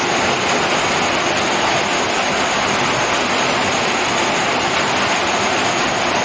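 Steady rushing of water that holds at an even level with no breaks.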